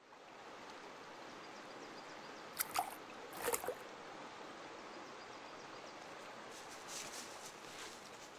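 Gently running stream water, a steady trickle that fades in at the start, with a small cluster of water-drop plinks between about two and a half and four seconds in, and a few fainter ones later.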